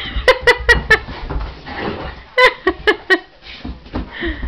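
Newfoundland dog giving short, excited play barks in two quick runs of about four, with scuffling from the romp between them.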